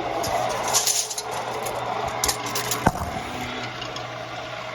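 A steady low hum with brief rustling handling noises and one sharp click just before three seconds in.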